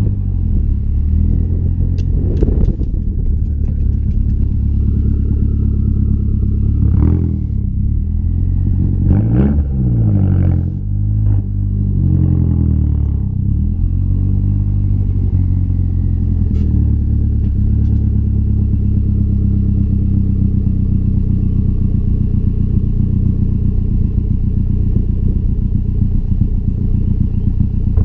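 2012 Mazdaspeed3's turbocharged 2.3-litre four-cylinder running through a single-exit axle-back exhaust, a deep steady exhaust note. Its pitch shifts up and down a few times in the first half, then holds steady.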